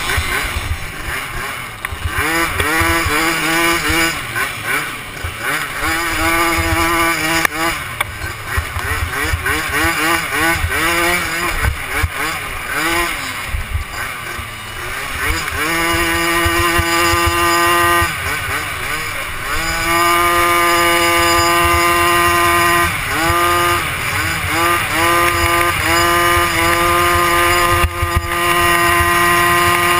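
A youth 90 cc racing ATV's small single-cylinder engine, heard from on board, revs up and backs off again and again through the turns. In the later part it holds steady high revs along the straights, rising slightly, with wind rumbling on the microphone underneath.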